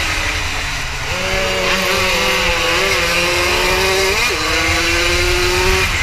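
80 cc racing motorcycle engine running hard at high revs, heard from its onboard camera, the pitch climbing slowly with a sudden drop and recovery a little over four seconds in, an upshift. Wind rumbles on the microphone.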